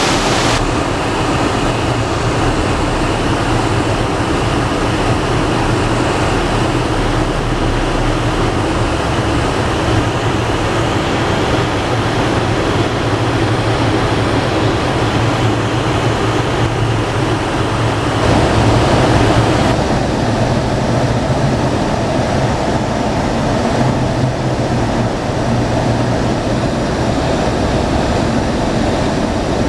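Steady vehicle running noise on the road: an engine's low hum under broad wind and road noise, swelling briefly about two-thirds of the way through.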